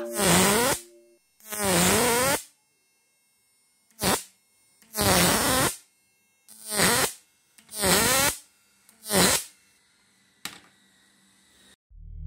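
Electric fish-shocking machine, a 1000 W analog transistor inverter, arcing in bursts as its output lead is touched to a metal plate: about seven loud buzzing bursts, each under a second, whose pitch dips and rises. Electronic intro music starts at the very end.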